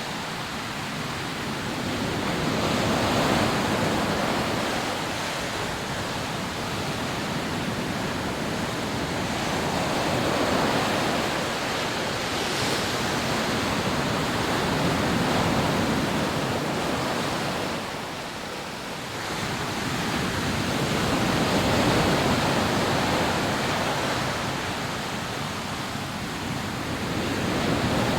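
Rough sea surf breaking on a sandy beach: a continuous rushing wash that swells and recedes every few seconds as waves break, with a brief lull about two-thirds of the way through.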